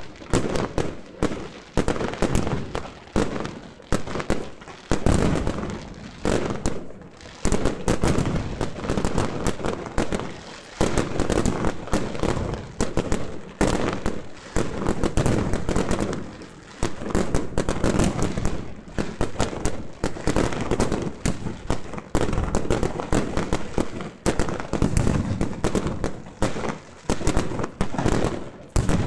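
Fireworks display going off in a continuous barrage of rapid, overlapping bangs.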